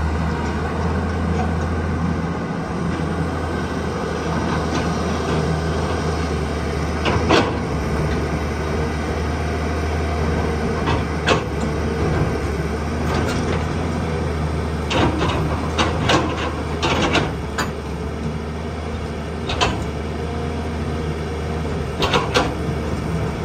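Tata Hitachi 200 hydraulic excavator's diesel engine running steadily under digging load. Its bucket knocks and clanks in rock and soil: a sharp knock about seven seconds in, then more knocks, bunched in the second half.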